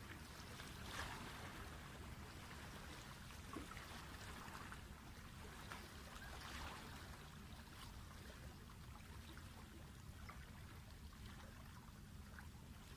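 Faint water lapping and trickling at the canal shore over a low steady rumble, with scattered small ticks and a couple of soft swishes.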